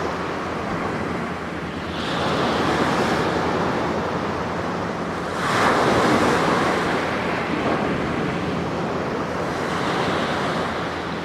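Sea waves washing onto the shore, the surf swelling in several surges, the loudest a little past the middle.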